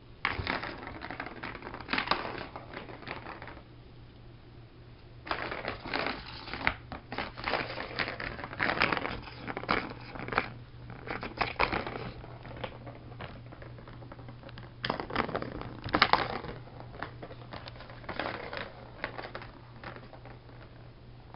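Turbo Track cat toy clattering as a cat plays with it, in several bursts of a few seconds each with short pauses between.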